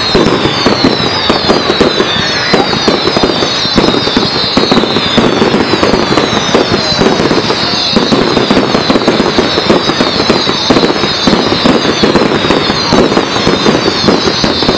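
Fireworks display: dense, continuous crackling and popping from many shells at once, with high whistles that fall in pitch, one after another, over the top.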